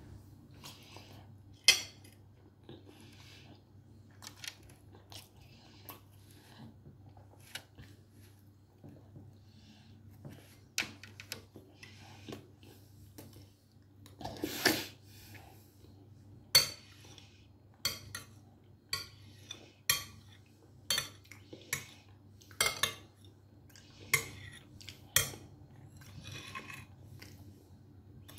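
Metal spoon clinking and scraping against a dish as someone eats, sharp clinks coming about once a second in the second half, over a steady low hum.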